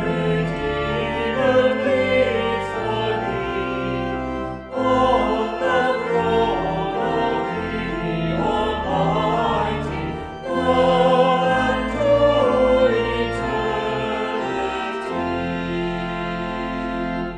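A small mixed group of men's and women's voices singing a hymn in harmony, in held phrases with short breaths about five and ten seconds in.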